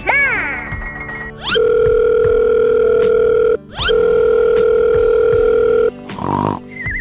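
Telephone ringing-tone sound effect: two long steady tones of about two seconds each, with a short break between them, over light background music for children. A short sliding cartoon sound effect opens it.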